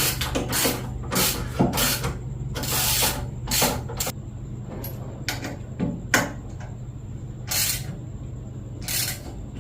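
Irregular clicks and short scraping strokes of bicycle headset parts being fitted and tightened on the fork steerer, a dozen or so, some in quick pairs, over a steady low hum.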